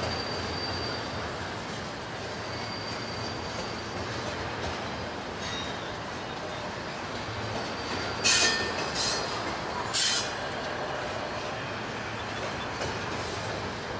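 Double-stack container freight train rolling by, a steady rumble of wheels on rail with a thin high squeal at times. About eight to ten seconds in, three short, loud, high-pitched wheel screeches.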